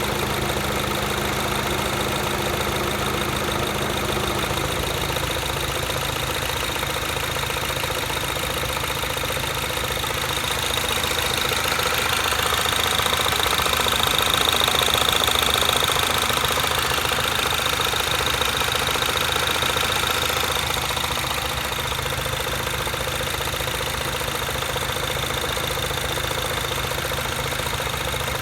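Mini Cooper S R56 turbocharged 1.6-litre four-cylinder engine running steadily at idle, with a high whine that grows louder for a stretch in the middle. It has a new timing chain tensioner and vacuum pump, and the owner is unsure whether this engine noise is normal.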